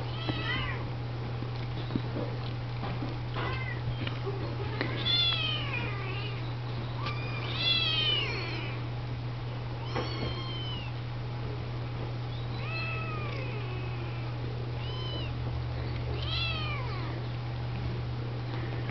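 Kittens mewing over and over: about ten short, high-pitched cries, one every second or two, the loudest around the middle.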